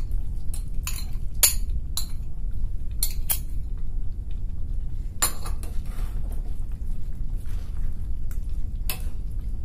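A steel slotted spoon and bowl clinking and scraping against a metal kadai as paneer cubes are tipped into thick gravy and stirred in. There are a handful of sharp clinks, loudest at about one and a half seconds and again about five seconds in, over a steady low rumble.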